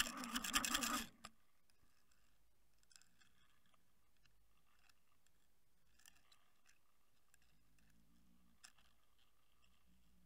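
Underwater camera rig jerked about: about a second of rapid clicking, rattling and scraping at the start, then faint background water noise with a few scattered soft ticks.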